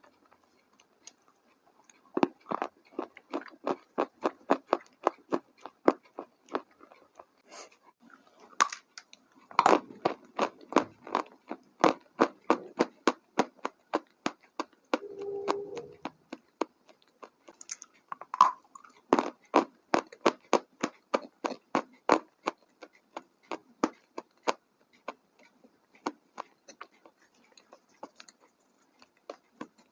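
Crunchy food being chewed: quick, regular crunches at about three to four a second, in runs broken by short pauses.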